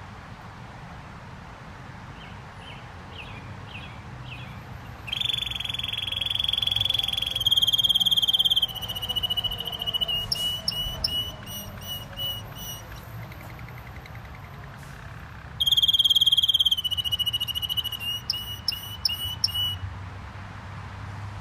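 Gloster canary singing: a few soft notes, then two long, loud phrases of fast trills and held whistled notes, the first starting about five seconds in and the second a little past the middle, each followed by a pause.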